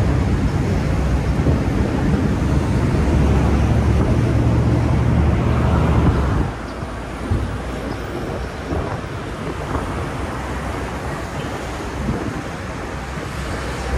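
A boat's engine drones low under wind buffeting the microphone and the rush of water. About six and a half seconds in, the engine drone drops away, leaving the wind and water noise.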